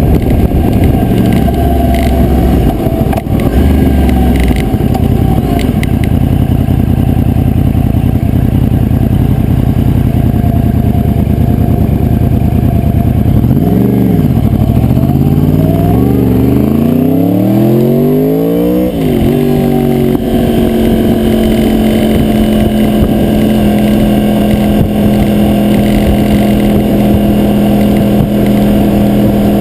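2009 Yamaha R1's crossplane inline-four engine pulling under way. The revs dip about halfway through, climb steadily, drop sharply at an upshift, then hold at a steady cruise. The sound comes through a GoPro Hero2 on a rattling adhesive mount.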